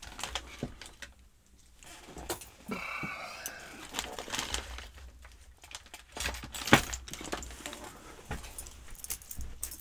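A brass lock cylinder with its key and key ring being handled: scattered small metal clicks and knocks, with a brief jingle about three seconds in and a sharper knock about two-thirds of the way through.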